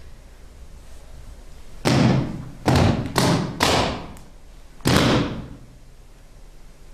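Five sharp, echoing percussive thuds in an uneven rhythm: one, then three in quick succession about half a second apart, then one more about a second later, each dying away over a fraction of a second.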